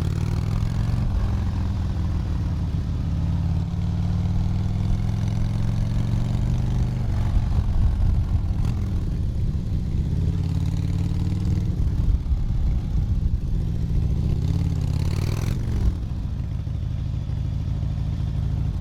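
Harley-Davidson motorcycle engine running under way, its pitch rising and falling several times with the throttle.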